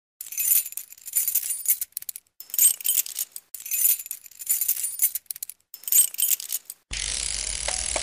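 Title-sequence sound effect of bright metallic jingling and clinking in about five swells, each a second or so long. At about seven seconds it gives way to a steady hiss.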